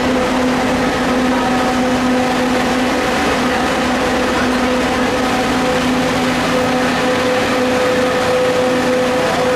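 Nova Bus standing at the stop with its engine idling and its rooftop air-conditioning unit running: a steady, loud hum with a constant low drone.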